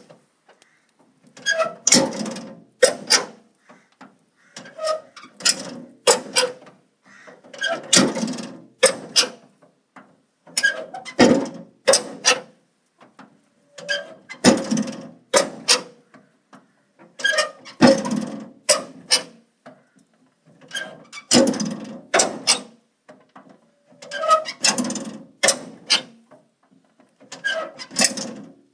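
Metal door worked shut over and over, roughly every three seconds: each time a short squeak and scrape followed by a couple of sharp metal clanks of the door and its latch.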